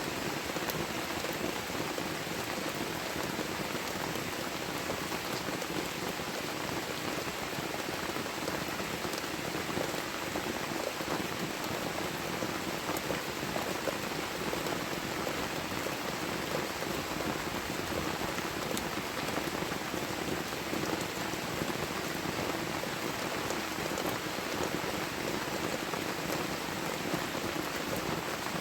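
Heavy rain falling steadily: a dense, even hiss of drops with fine ticks of individual drops through it.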